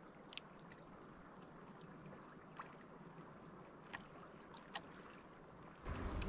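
Small lake waves lapping faintly against pebbles and rocks at the shore, with occasional small splashes and trickles. Music comes in just before the end.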